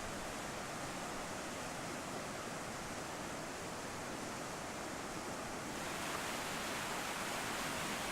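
Steady rush of a river running high after a flood, growing a little louder and brighter about six seconds in.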